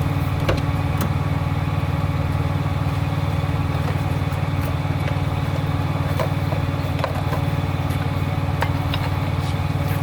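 An engine idling steadily, with a few light clicks over it.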